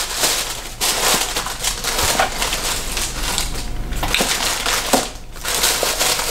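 Plastic snack wrappers and tissue paper crinkling and rustling as they are handled and rummaged through, nearly continuous with a few short pauses.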